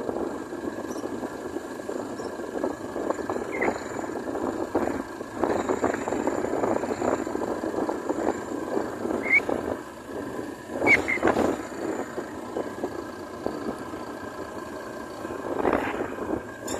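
Rough, fluttering wind noise on the microphone from a vehicle moving along a road, with a few short high chirps scattered through it.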